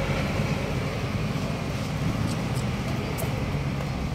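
Heavy diesel engine running steadily, a low rumble.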